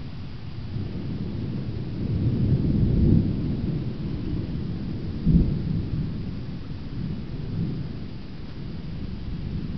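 Thunder rumbling. It builds over a couple of seconds, gives a sharper, louder clap about five seconds in, then rolls on more quietly.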